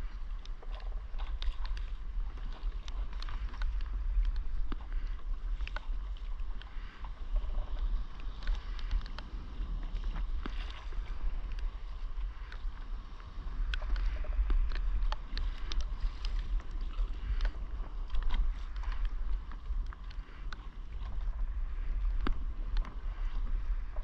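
Small waves lapping and slapping against the hull of a board on the sea, in many short irregular splashes, over a steady low rumble.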